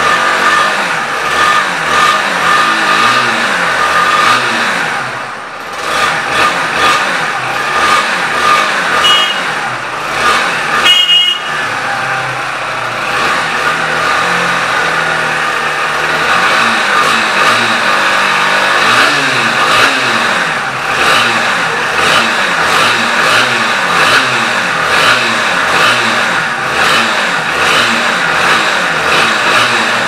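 Motorcycle engines running and revving up and down amid street traffic, with two short horn beeps about nine and eleven seconds in.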